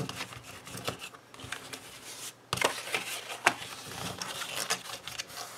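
A kraft cardboard gift box being handled and folded on a craft mat: light rustling and scraping of card, with a few sharp clicks and taps from about halfway through.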